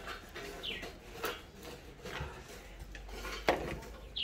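Scattered light knocks and clatter, the loudest a sharp knock about three and a half seconds in. A bird gives a short, high call falling in pitch, once near the start and again at the end.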